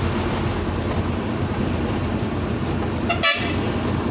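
Leyland 12-wheel truck engine running steadily, heard from inside the cab, with a short horn toot a little after three seconds in.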